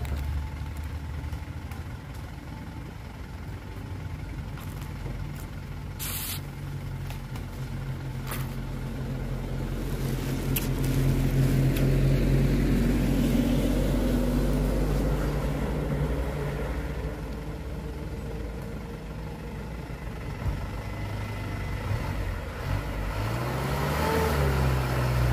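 Diesel engine of a loaded Isuzu light truck running steadily, its sound swelling and easing, then the revs rise near the end as the truck pulls away. A brief sharp clatter about six seconds in.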